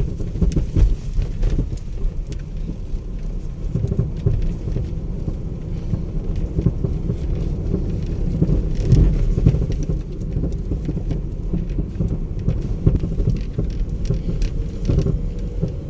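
Steady low road rumble of a moving vehicle.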